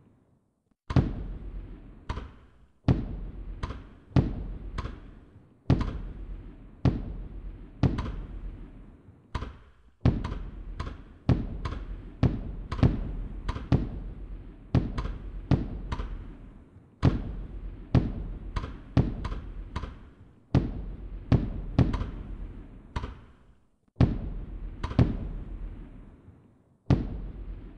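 Firework bursts going off in quick succession, about one a second. Each is a sharp bang that fades out over a second or so, and some overlap.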